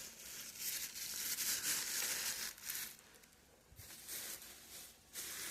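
Rustling and crinkling of packaging being handled, uneven, with a short lull about three seconds in.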